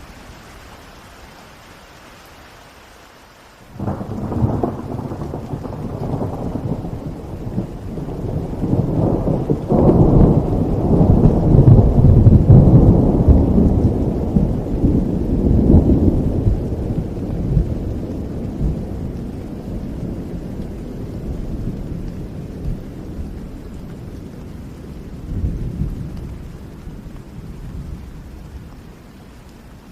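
Steady rain with a thunderclap breaking in a few seconds in. It becomes a long rolling rumble that swells, is loudest about halfway through, and slowly dies away.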